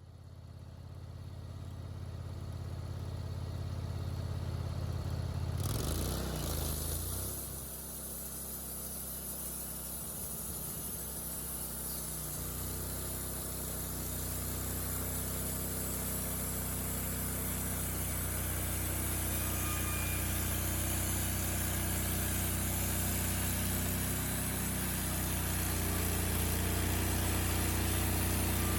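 Engine running steadily. It changes pitch and dips briefly about six seconds in, then settles and slowly grows louder.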